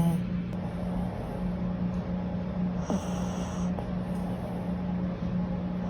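Chihuahua puppy snoring in its sleep, a steady low drone with a short falling sound about three seconds in.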